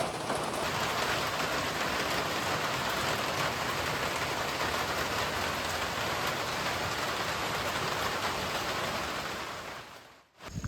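Steady rain falling, an even hiss that fades away near the end.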